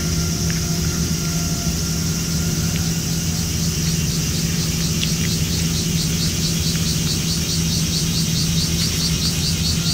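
Steady low mechanical hum over a background of noise. About halfway through, a high pulsing cicada call joins in at about four pulses a second.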